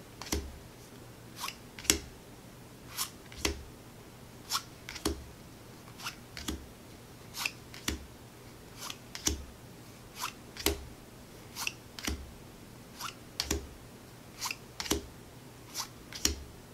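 Textured-finish board game cards being slid off the top of a small deck one at a time. Each card gives a short, crisp swish-and-snap, mostly in pairs, one pair every second and a half or so.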